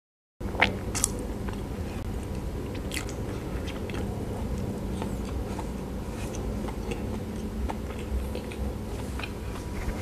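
Close-miked chewing of a soft steamed bun (pau) with a coarse peanut filling, with wet mouth clicks and smacks scattered through it. It starts after a moment of dead silence at the very beginning.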